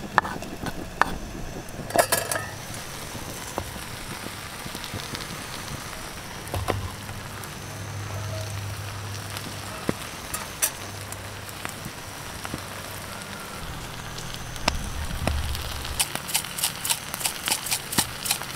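Mussels and cheese cooking in a metal pan over a wood fire: a low, steady sizzle with the fire's scattered sharp crackles. A run of quick, even taps comes in the last couple of seconds.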